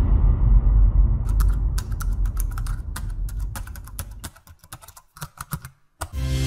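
Computer keyboard typing sound effect: an uneven run of key clicks, about five a second, lasting about four and a half seconds, over the fading low rumble of a deep boom.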